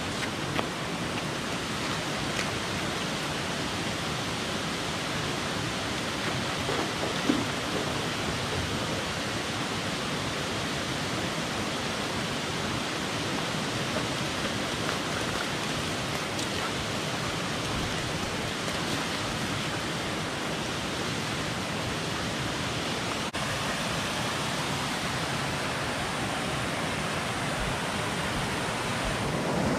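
Creek cascade: water spilling over rock ledges into a pool, a steady even rush. One short sharp sound stands out about seven seconds in.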